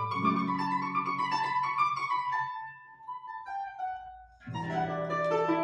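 Solo classical guitar playing plucked notes and chords. The phrase thins to a few quiet single notes about three seconds in, and full chords return near the end.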